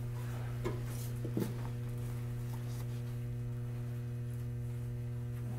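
Steady electrical hum inside the cabin of a Hakodate City Tram 3000-series car, with no rising or falling motor whine, and a couple of faint clicks about a second in.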